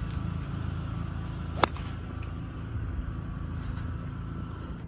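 A driver striking a teed golf ball: one sharp, loud crack about a second and a half in. A steady low rumble of wind on the microphone runs underneath.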